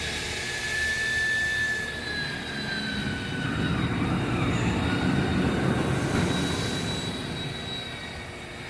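A machine running steadily with a high whine over a rushing noise; the whine dips in pitch about two and a half seconds in, and the sound swells in the middle and eases off near the end.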